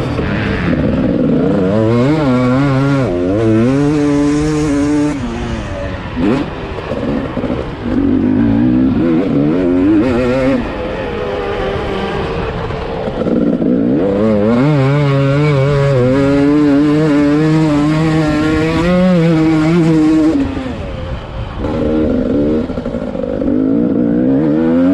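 Two-stroke motocross bike engine heard from an onboard camera, revving up and down hard through the gears. The throttle is shut off briefly about six, thirteen and twenty-one seconds in before the engine picks up again.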